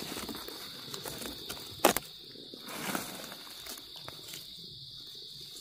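A steady, high-pitched buzz from forest insects, with scattered crackles and one sharp snap just under two seconds in.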